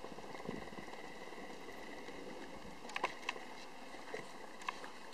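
A horse's hooves falling softly on arena sand at a jog, over a steady hiss, with a few sharp clicks about three seconds in and again near the end.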